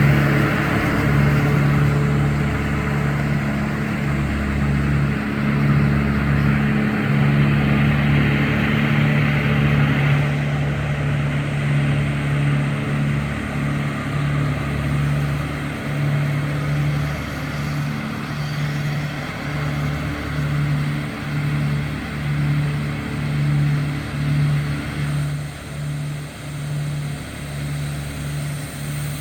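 Heavy vehicle engine running steadily, a droning hum that pulses and wavers, over a low rumble. A rushing hiss runs with it and drops away about ten seconds in.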